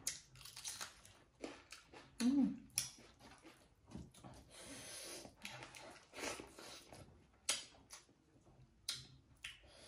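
Close-miked mukbang eating sounds: a crisp bite into a raw green chili, then chewing with wet lip and tongue clicks and smacks. A short hum comes about two seconds in.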